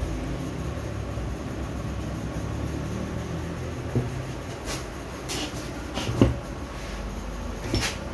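Several short metal clicks and knocks, the loudest about six seconds in, from a turbocharger's core assembly being fitted into its compressor housing, over a steady low hum.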